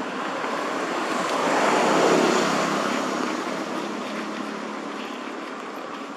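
A road vehicle passing by: its engine and tyre noise swell to a peak about two seconds in, then fade away slowly.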